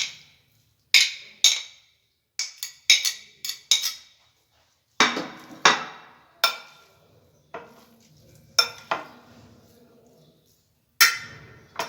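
Utensil clinking and knocking against a bowl while the pastilla filling is mixed: about a dozen sharp, ringing knocks at uneven intervals.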